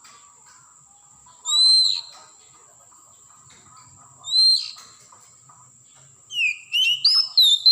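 Oriental magpie-robin singing: two single slurred whistles a few seconds apart, then a fast run of varied whistled notes near the end.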